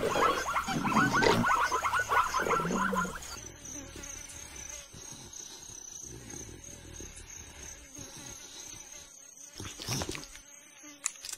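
Cartoon savanna sound: for the first three seconds a busy run of quick repeated strokes, then a quieter stretch with a steady high chirr of insects. A short breathy sound comes about ten seconds in.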